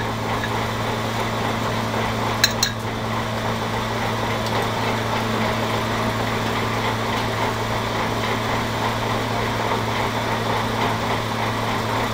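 Steady hum and rush of a small electric motor blowing air, with two sharp clinks about two and a half seconds in.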